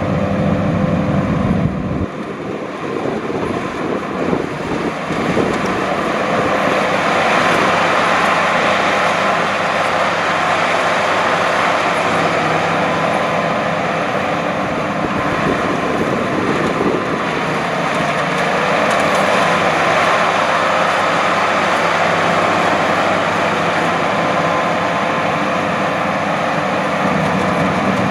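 Luvol RD18 rice combine harvester running steadily: a continuous mechanical drone with a steady whine on top. The deep rumble drops away abruptly about two seconds in.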